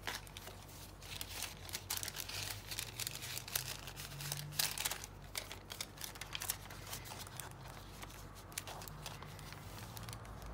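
Paper rustling and crinkling as hands handle journal pages, cards and tracing paper, with scattered small clicks as a metal clip is worked on and off, over a faint low hum.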